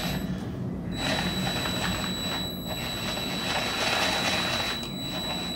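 Cordless drill with a long extension and universal-joint socket spinning, backing out one of the two 8 mm bolts that hold the coolant bypass valve. The motor starts about a second in and runs steadily with a high whine.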